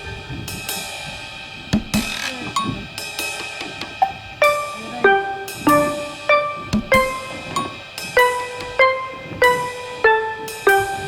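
Background music with a drum kit: a pitched melody of struck notes over snare, hi-hat and cymbal hits.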